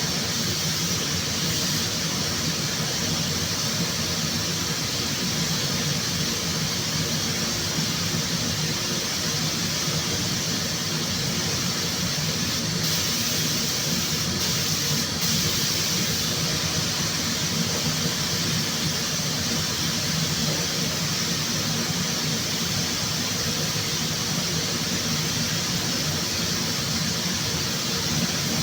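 Steady, unbroken hiss of compressed air with a low mechanical hum underneath, typical of spray-painting equipment at work in a body shop.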